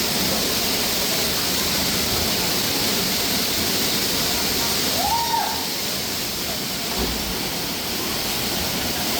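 Steady rush of falling river water, an even hiss-like roar. About five seconds in comes one short whistle-like call that rises, holds and falls.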